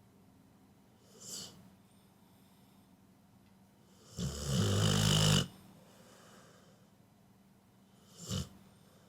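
Pit bull snoring in its sleep: one long, loud snore in the middle, with a short, fainter breath sound about a second in and another near the end.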